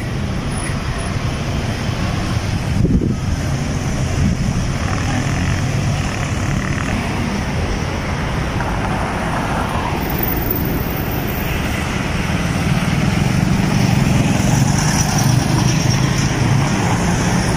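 City street traffic: cars, motorcycles and a bus running in slow traffic, a steady rumble that grows louder over the last few seconds.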